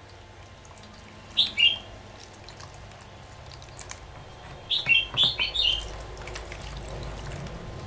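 A bird chirping: a quick pair of high chirps about a second and a half in, then a run of four or five chirps around five seconds in, over a faint steady background hiss.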